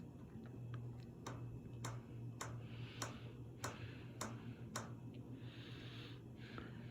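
Hampton Bay Minuet ceiling fan with a faint steady motor hum and a regular tick, about two a second, that stops near five seconds in.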